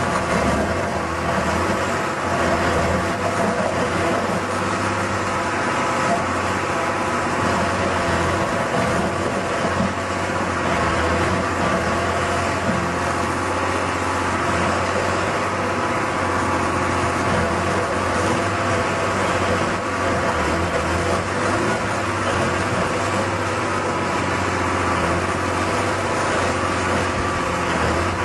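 Stump grinder's engine-driven drive running steadily and continuously, with a constant low hum and no pauses.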